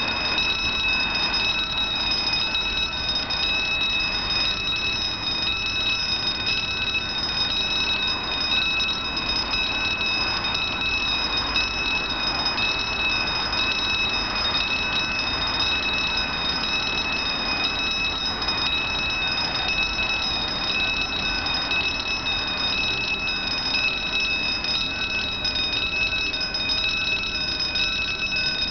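Level-crossing warning bell ringing rapidly and without a break, warning that a train is approaching the crossing.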